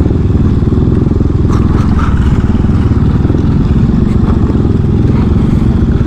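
Motorcycle engine running at low speed while riding, with a few clatters and knocks about one and a half to two seconds in.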